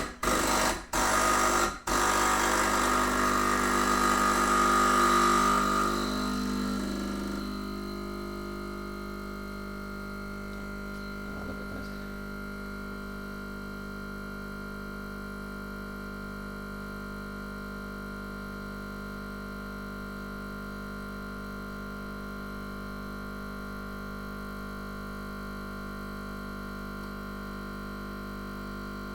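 Background synthesizer music: a noisy, louder texture for the first seven seconds, then settling into a steady sustained pad of held tones.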